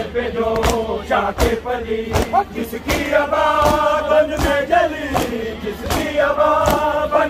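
A crowd of men chanting a Shia mourning lament in unison, with hands slapping chests together in matam, a sharp slap about every three-quarters of a second keeping time with the chant.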